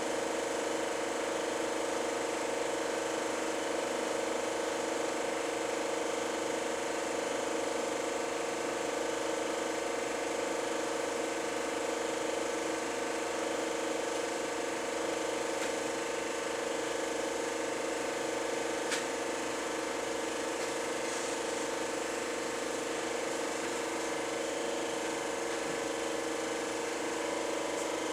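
Super 8 film projector running: a steady mechanical whir and hum with no change in speed, and one small click about two-thirds of the way through.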